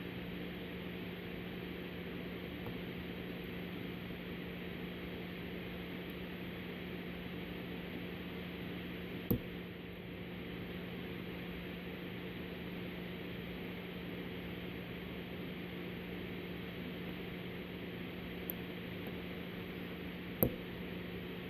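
Steady low hum and hiss, with a few sharp clicks from the hook pick working the pins of a Master Lock Magnum M187 padlock: one about 9 seconds in, a faint one later, and the loudest near the end.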